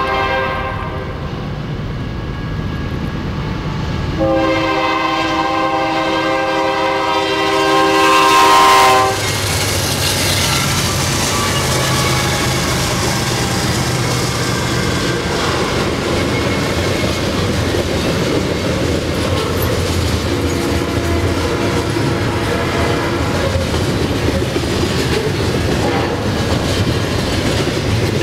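Diesel freight locomotive horn: a short blast fading just after the start, then a long loud chord held from about four seconds in until the locomotive reaches the camera some nine seconds in. The train then passes close by, with a steady rumble and the clatter of the cars' wheels over the rails.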